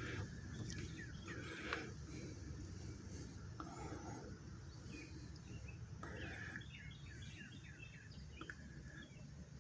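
Faint background of birds chirping, with a quick run of chirps about six seconds in, over a thin, steady, high-pitched insect trill. A light click comes a little under two seconds in.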